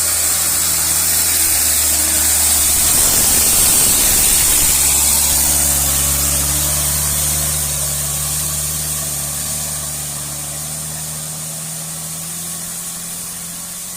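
Hino 500 FM 260 TI dump truck's six-cylinder turbo-diesel engine pulling hard up a steep grade under load, over a steady hiss. It is loudest a few seconds in, then fades as it pulls away.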